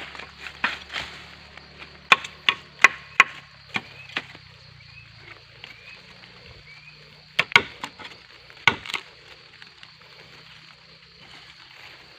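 Sharp chopping blows of a blade into gombong bamboo stems: a quick run of about eight strikes, a pause of a few seconds, then two more pairs of strikes.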